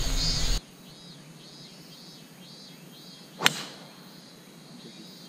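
Driver striking a golf ball off the tee: one sharp crack about three and a half seconds in, over insects chirring in steady pulses.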